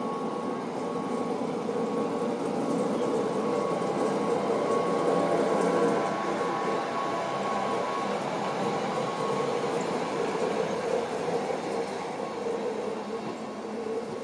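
DB class 112 electric locomotive hauling a rake of n-Wagen regional coaches slowly past along the platform. A steady electric whine runs over the rolling rumble, getting louder as the locomotive passes and easing as the coaches follow.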